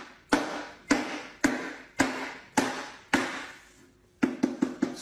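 A cleaver chopping in steady, sharp strokes about two a second, then a quicker run of lighter chops near the end.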